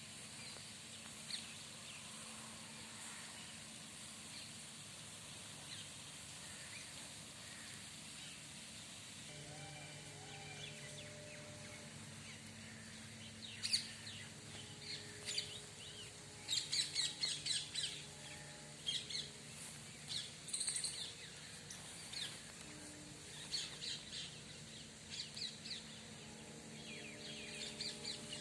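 Small birds chirping outdoors: bursts of quick, high, repeated chirps begin about halfway through and come thickest a few seconds later. Under them runs a faint steady low hum.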